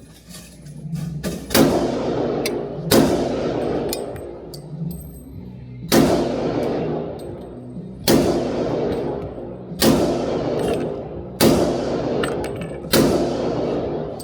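Pistol fired seven times at an unhurried pace, the shots one to three seconds apart, each with a long echoing tail.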